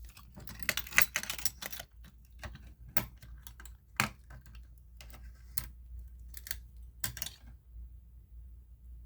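Scattered clicks and light rattles of hard objects being handled, coming in small clusters. The sharpest click falls about four seconds in.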